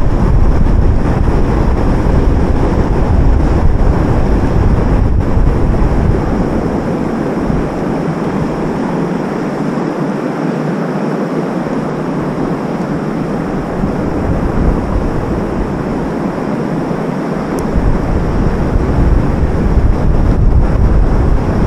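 Wind buffeting the microphone, a steady rushing noise with a heavy low rumble; the rumble eases for about ten seconds in the middle, then comes back.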